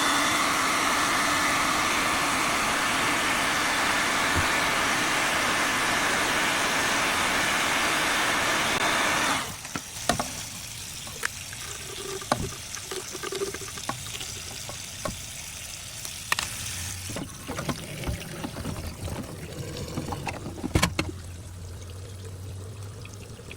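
Water running in a steady rush that cuts off suddenly about nine seconds in, followed by a quieter trickle with scattered small clicks and knocks.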